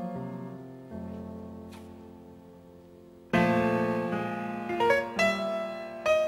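Solo jazz piano: soft chords held and left to fade. About three seconds in comes a much louder chord, followed by a few quicker notes and chords.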